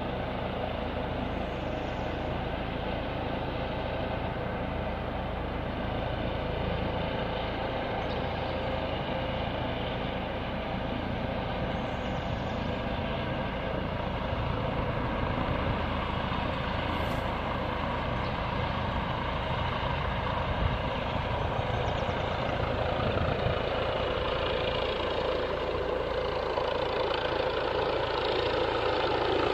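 A steady engine hum with a constant low drone, slowly growing louder toward the end.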